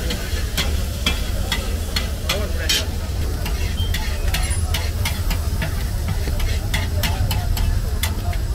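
Food frying and sizzling in a metal pan while a utensil stirs it, with frequent irregular sharp clinks of metal on metal, over a steady low rumble.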